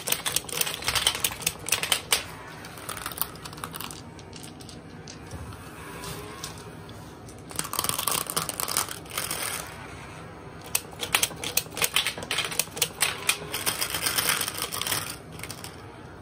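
Rapid clicking from a B-Daman Strike-Cobra toy marble shooter being rapid-fired, with glass marbles clacking together as they land and roll. The clicking comes in three runs: at the start, about eight seconds in, and again from about eleven to fifteen seconds in.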